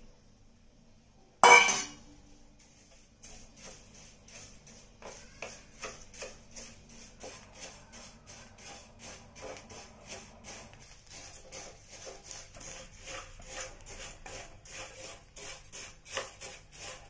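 A wooden spatula stirring parboiled rice as it dry-roasts in a stainless steel kadai: the grains scrape and rustle against the steel in quick strokes, about three a second. One loud knock about a second and a half in, before the stirring starts.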